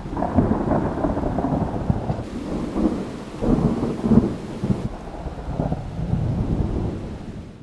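Thunder cracking and rumbling over steady rain during a thunderstorm, loudest about half a second in and again about four seconds in.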